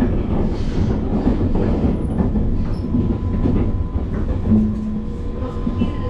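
Limited express train running at speed, heard from the vestibule between cars: a steady loud rumble of wheels on the rails with a faint steady whine above it.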